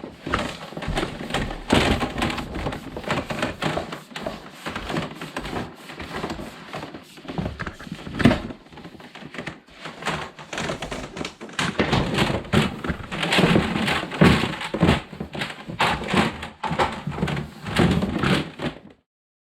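Irregular knocking, scraping and rustling of hands-on work in a small room, dense and continuous, cutting off abruptly near the end.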